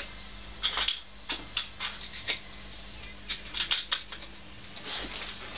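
Irregular light clicks and rattles of small parts and tools being handled, about a dozen scattered through the few seconds, over a faint steady hum.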